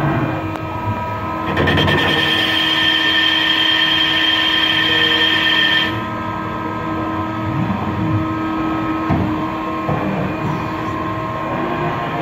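Mazak CNC lathe spinning a crankshaft, with a steady machine hum. A high-pitched whine joins it about a second and a half in and cuts off abruptly about six seconds in.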